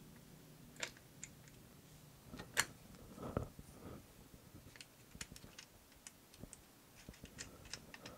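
Faint, irregular small metal clicks and ticks from a bolt and nut being fitted by hand through a bicycle's front fork crown to mount the front mudguard. The two sharpest clicks come about a second and about two and a half seconds in.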